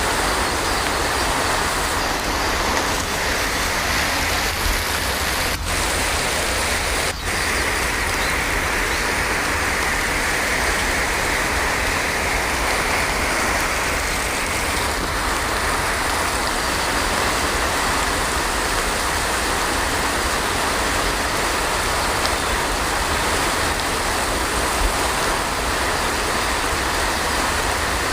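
Heavy rain falling steadily, a dense even hiss with no thunder. Two very brief dropouts come about six and seven seconds in.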